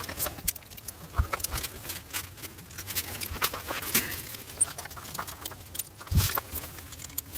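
Camping gear being handled while a tent is set up: irregular rustling and light clinking. There are two dull thumps, about a second in and near the end.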